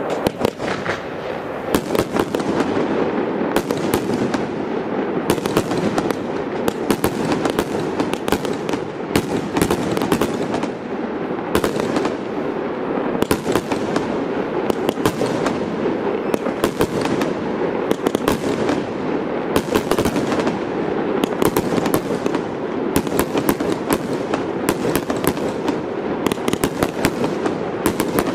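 Aerial fireworks display: many sharp bangs and crackles in quick succession, several a second, over a continuous rumble.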